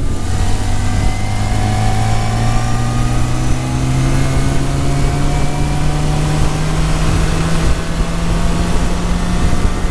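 1980 Yamaha XS1100 Special's inline-four engine pulling a top-gear roll-on from 40 to 80 mph, its note climbing slowly and steadily the whole time, over a constant rush of wind noise.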